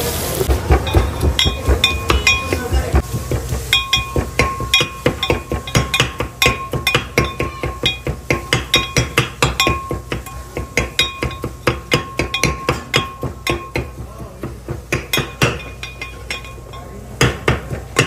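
A metal kitchen utensil striking again and again, about three strikes a second, each with a short metallic ring. The strikes thin out after about fourteen seconds.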